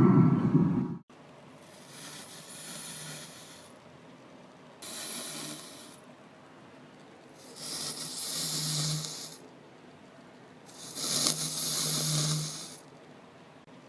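Motorised snoring-sound machine giving four airy, hissing snore-like breaths, each one to two seconds long and a few seconds apart. A louder low-pitched sound cuts off about a second in.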